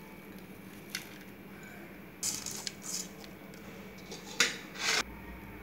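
Crisp fried onions rustling and crackling as a hand scoops them from a plastic tub and scatters them over raw chicken, in a few short bursts, the sharpest about four and a half seconds in.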